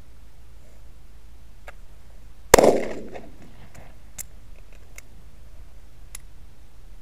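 A single shot from a Ruger SR40C .40-calibre compact pistol about two and a half seconds in, sharp and echoing briefly, then a few light metallic clicks from the pistol as it fails to fire, the primer not being struck.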